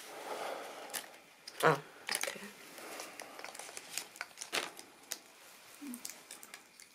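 Plastic packaging crinkling, with scattered small clicks and knocks as a radio-control truck chassis is handled; one louder knock comes a little under two seconds in.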